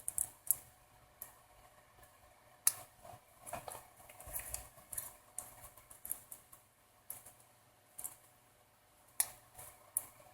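Faint, irregular clicks and taps of small smartphone parts being handled as the main and front camera modules are fitted and their connectors pressed onto the circuit board.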